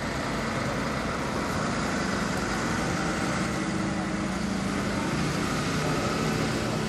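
A motor vehicle's engine running steadily, a continuous low drone over outdoor noise.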